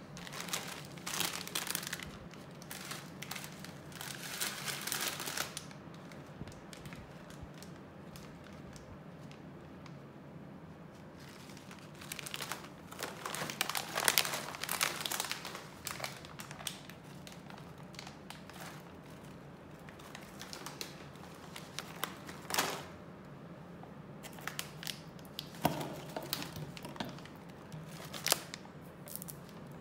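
Plastic snack bag crinkling and rustling as it is handled, in several bouts of a few seconds each, the loudest about halfway through, over a steady low hum.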